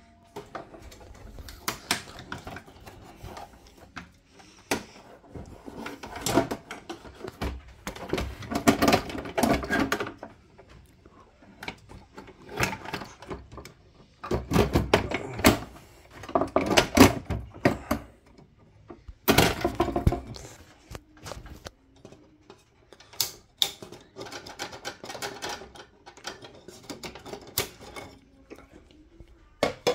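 Handling noise of a fluorescent light fitting being worked on: irregular clicks, knocks and scraping of its plastic housing and metal gear tray, coming in bursts with short pauses between.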